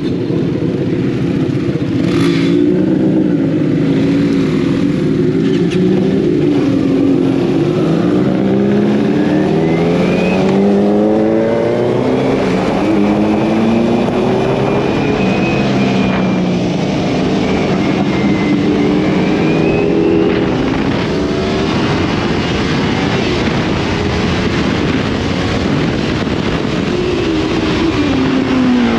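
Kawasaki Z900 motorcycles fitted with full exhaust systems, riding hard on the road. Their engine note climbs and drops repeatedly as they accelerate through the gears, over a steady rush of wind.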